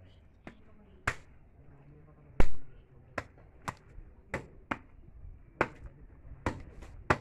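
Sharp, irregular clicks and knocks from a skinned goat head being handled and worked with a butcher's knife, the loudest about two and a half seconds in.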